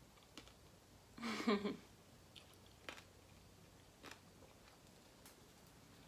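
Faint chewing of a soft Oreo mug cake topped with crunchy round sprinkles, with a few small crunches or clicks spread a second or so apart. About a second and a half in there is a short voiced hum from the eater.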